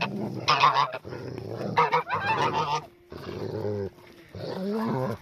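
Agitated white domestic goose honking: a run of loud, harsh honks in the first three seconds, then softer calls that bend in pitch.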